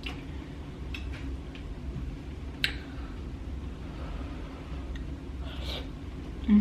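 Close-miked eating sounds: chewing with scattered sharp mouth clicks, the clearest about two and a half seconds in, over a steady low hum. A dull thump comes right at the end.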